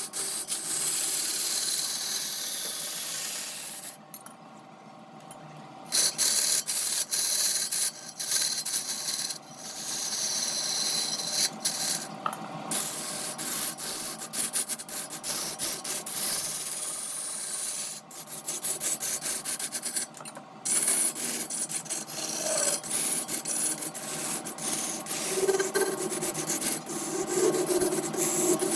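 A turning tool cutting into wood spinning on a lathe: a steady rough scraping with fast fine ticks, which stops for about two seconds a few seconds in and cuts out briefly twice more later on.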